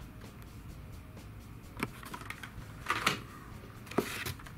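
Plastic blister-pack toy car cards being handled and pulled from a cardboard shipping case: a few short clicks and crinkles, one a couple of seconds in, a brief cluster about three seconds in and another near the end.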